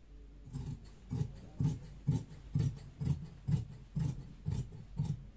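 Tailor's shears cutting through trouser fabric on a cutting table: a steady run of about ten snips, roughly two a second.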